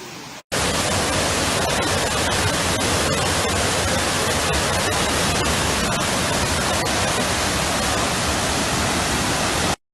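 Steady, loud rush of fast-flowing floodwater from a swollen river. It starts abruptly about half a second in and cuts off abruptly near the end.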